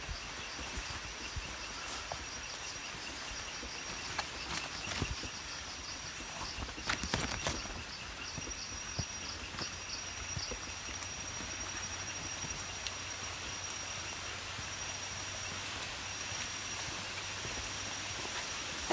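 Footsteps and brushing through undergrowth on a rainforest trail, with a cluster of louder knocks about seven seconds in. Over it, insects call steadily at a high pitch.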